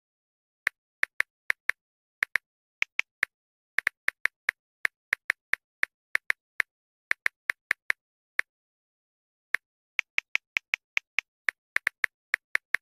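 Phone on-screen keyboard key-press clicks, one short sharp click for each tapped key, in an uneven typing rhythm with a pause of about a second past the middle.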